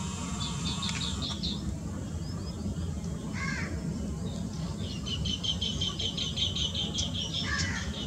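Green bee-eaters calling in a flock: a few short, high chirps, then a fast run of chirps from about five seconds in. A lower, harsher call comes about three seconds in and again near the end, over a steady low background rumble.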